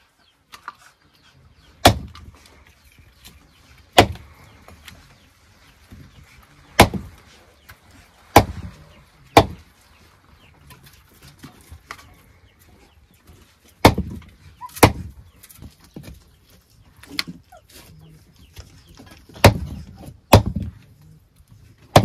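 A series of about ten sharp, hard knocks, spaced irregularly from about one to five seconds apart.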